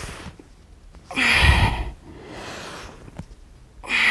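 A woman's forceful breaths out during crunches, a loud breathy rush about a second in and another near the end, with softer breaths in between.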